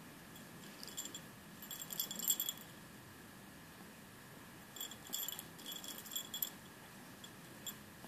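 The metal tag on a cat's collar jingling in short clusters as a rainbow lorikeet tugs at the collar with its beak. There are a few jingles about a second in, a busier cluster just after, a longer run in the second half and a single jingle near the end.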